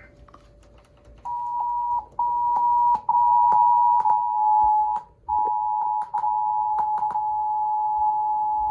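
Emergency Alert System attention signal: the two-tone 853 Hz and 960 Hz alert, starting about a second in and then held steady. It cuts out briefly four times in its first five seconds, the longest gap about five seconds in: dropouts where the TV broadcast breaks up in the storm.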